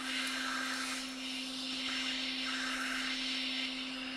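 Hot air rework station blowing steadily, a rushing hiss of air over a constant low hum, as it heats the board to loosen a soldered metal shield.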